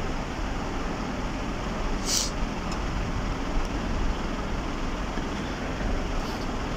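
Car heard from inside the cabin, driving on an unpaved dirt-and-gravel road: a steady rumble of engine and tyre noise, with a brief high-pitched noise about two seconds in.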